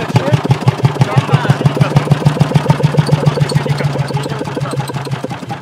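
Single-cylinder hot-bulb engine of a 1921 Lanz Bulldog tractor running slowly, firing in an even beat of about seven strokes a second over a steady low hum.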